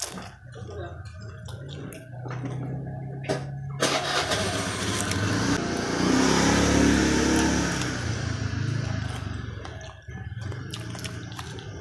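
A motor vehicle engine running with a steady low hum, then a louder swell that peaks about six to seven seconds in, its pitch falling as it dies away.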